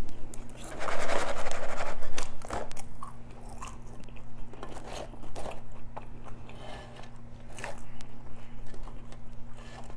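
Close-miked eating: biting and chewing food, with a loud crunchy stretch about a second in, then softer wet chewing clicks.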